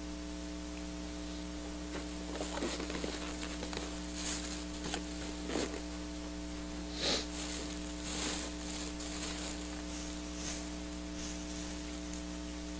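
People eating rib meat: scattered chewing, lip-smacking and small wet mouth clicks, loudest about seven seconds in, over a steady electrical hum.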